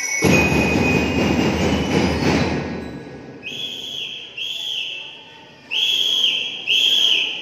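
A whistle blown four times in long, even blasts of under a second each, starting about halfway through. Before the whistle there is a loud, noisy din that fades out over the first three seconds.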